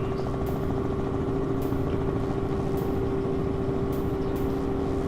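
Helicopter noise heard from inside the cabin: a steady engine and rotor drone with a constant hum in it.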